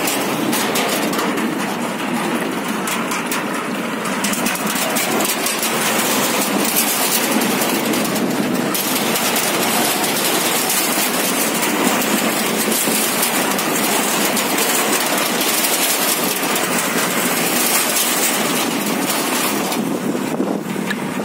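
Bicycles rolling over the steel deck plates of a metal bridge that shakes as it is crossed: a steady, loud rattling clatter. The clatter thins near the end as the bikes come off onto the road.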